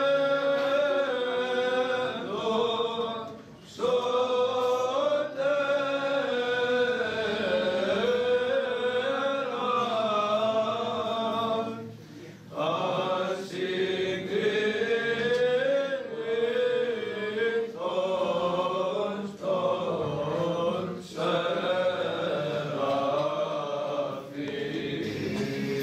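Choir of young male chanters singing Greek Orthodox Byzantine chant together, in long phrases with brief breaks about four and twelve seconds in.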